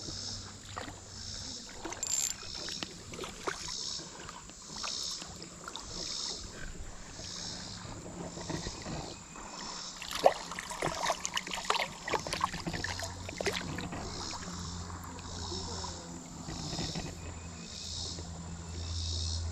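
Creek water running, with an insect chirping in a steady rhythm a little more than once a second. Scattered clicks and knocks are heard, busiest around the middle.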